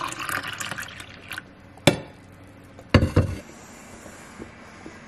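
Coffee pouring from a carafe into a ceramic mug, the stream thinning out and stopping within the first second or so. Then a sharp click, and about three seconds in a louder knock with a low thud.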